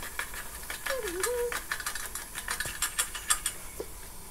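Tomato being grated by hand over a steel bowl: quick, irregular rasping scrapes, several a second.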